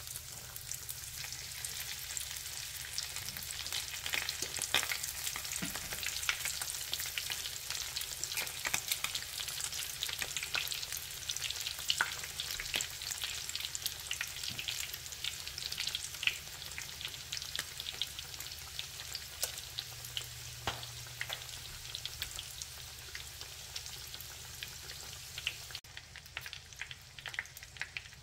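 Egg rolls shallow-frying in hot oil in a cast-iron skillet: a steady sizzle full of small pops and crackles, which turns suddenly softer near the end.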